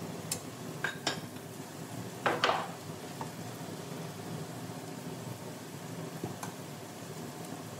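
A spoon knocking and clinking against a nonstick wok as spices are stirred into frying onion and tomato: a few separate clicks, the loudest pair about two and a half seconds in, over a steady low background noise.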